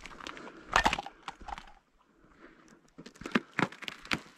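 Footsteps crunching in snow, irregular steps that pause for about a second in the middle and then go on.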